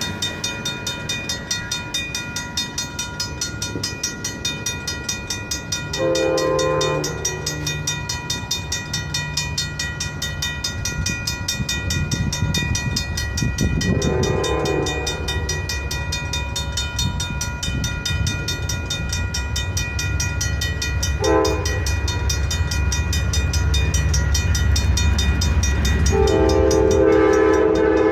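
Two RACO mechanical crossing bells ringing steadily throughout, while an approaching Amtrak diesel locomotive sounds its horn in the grade-crossing pattern: long, long, short, then a final long blast near the end. The locomotive's engine rumble grows louder from about halfway through as the train reaches the crossing.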